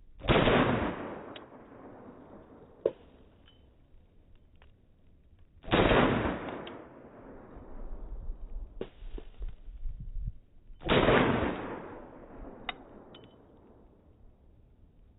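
Three shots from a Walther P22Q .22 LR pistol, slowed down in slow-motion playback, so each is a deep sudden bang with a long fading tail. The shots fall about five seconds apart, with a few short sharp clicks between them.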